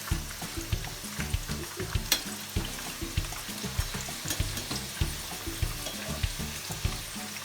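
Breaded chicken nuggets frying in shallow cooking oil: a steady sizzle full of small crackles, with one sharper click about two seconds in.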